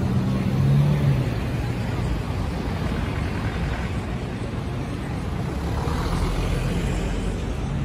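City street traffic: the steady low rumble of cars and taxis' engines moving along the road, with a crowd's voices in the background.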